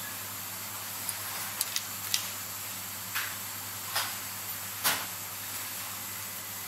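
Light, sharp clicks of steel tweezers touching small watch parts, metal parts trays and a Seiko 7S26B movement during assembly, about seven scattered ticks with the sharpest a little before the five-second mark, over a steady background hiss.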